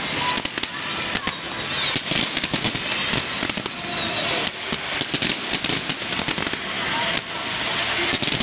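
Aerial fireworks going off in a dense, rapid barrage: many sharp bangs and crackles every second over a continuous hiss.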